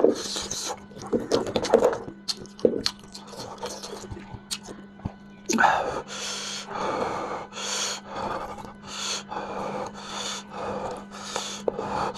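A person eating mala lamb head close to the microphone: chewing, slurping and sucking at the meat, with breaths through the mouth and nose, under a steady low hum.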